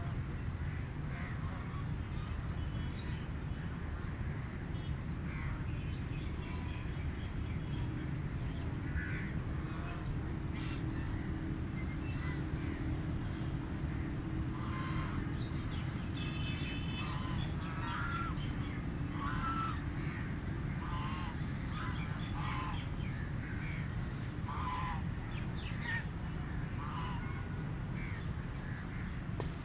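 Ducks quacking: many short, scattered calls, coming more often in the second half, over a steady low rumble.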